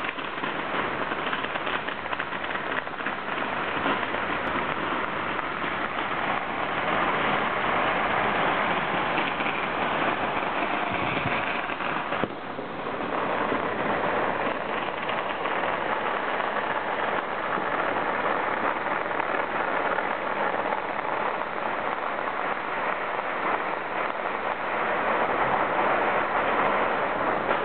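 Many strings of Chinese New Year firecrackers going off at once across a city, heard as a dense, continuous crackle, with a brief dip about twelve seconds in.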